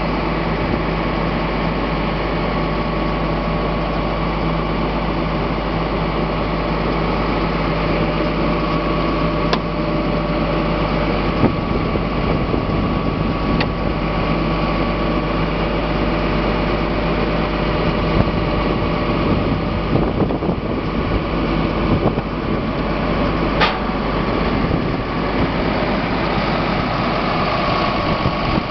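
Ford F-750's 5.9 Cummins turbodiesel inline-six idling steadily, an even engine drone with no revving.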